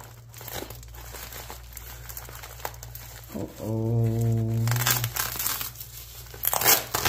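Package wrapping crinkling and rustling as it is unwrapped by hand, with a louder tearing rustle near the end. About halfway through, a low steady hum holds for about a second and a half.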